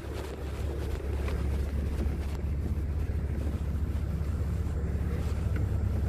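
Fire engine's diesel idling, a low steady rumble that slowly grows louder, with a short knock of the phone being handled at the start.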